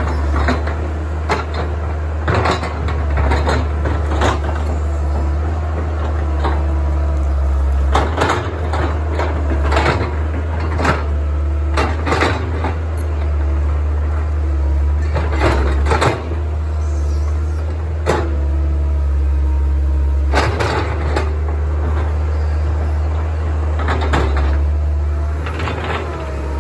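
Kobelco hydraulic excavator's diesel engine running steadily, with repeated clanks and knocks from the bucket and boom as it digs into and works a heap of soil.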